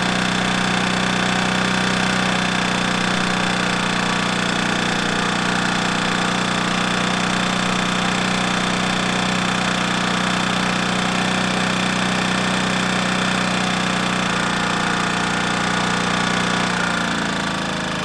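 Generac iX2000 inverter generator running steadily at its high setting with no load. About a second before the end, the engine speed and pitch drop as it is switched into eco mode.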